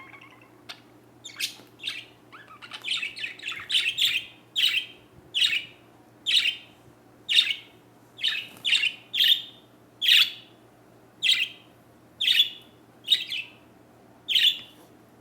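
A small bird chirping over and over in short, sharp calls. They come in a quick cluster a few seconds in, then settle to about one chirp a second.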